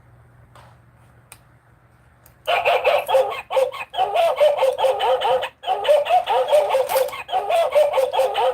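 A toy's electronic animal sound effect: a rapid run of short pitched calls, about four to five a second with brief breaks, starting about two and a half seconds in.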